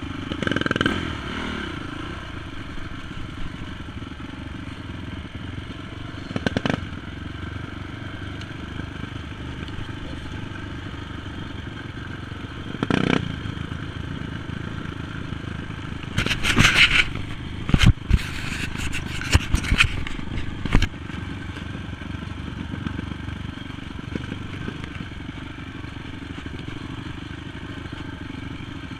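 Single-cylinder four-stroke engine of a Honda TRX450 quad running steadily along at trail speed. Several sharp knocks and clattering from about 16 to 21 seconds in as the machine jolts over bumps in the rutted trail.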